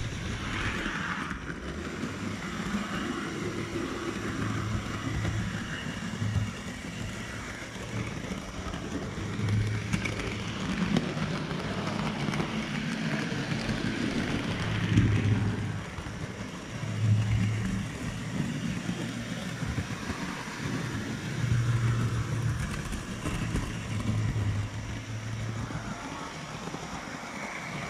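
Model railway train running along the track, heard from a camera riding on it: a steady rolling rumble and rattle of wheels on rail, with a low hum that comes and goes.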